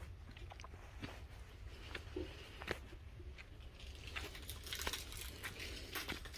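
Footsteps on dry, gravelly dirt: irregular small crunches and clicks, busier in the second half, over a steady low wind rumble on the microphone.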